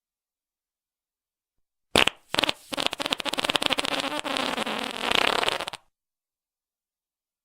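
Fart sound effect: a short sharp blast about two seconds in, then a long rapid sputtering fart lasting about three and a half seconds, with silence before and after.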